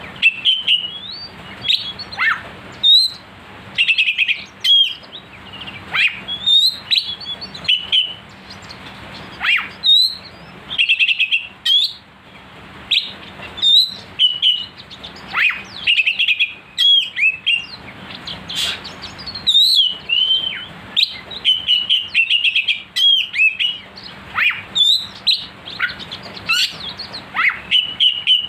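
Oriental magpie-robin in full song: a loud, fast, varied stream of short whistles and sharp chirps with hardly a pause.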